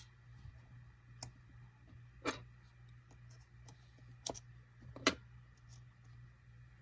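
A few small, sharp clicks and taps from tools and parts being handled while an iPhone 5c is taken apart. There are about four clicks spread unevenly over several seconds, over a faint steady low hum.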